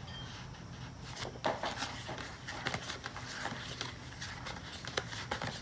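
Paper pages of a sticker book being leafed through: a string of soft, irregular rustles and flicks.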